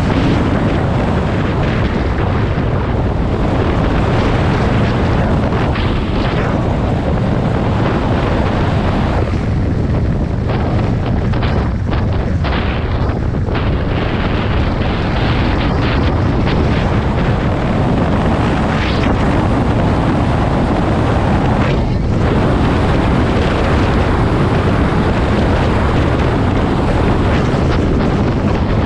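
Riding motorcycle heard through wind buffeting the microphone, with engine and road noise underneath at a steady level.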